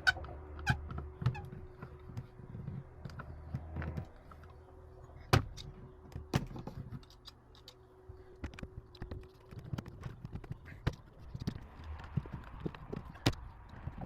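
Irregular knocks and clicks of hard objects being handled, a few louder than the rest, over a faint steady hum that stops about two-thirds of the way through.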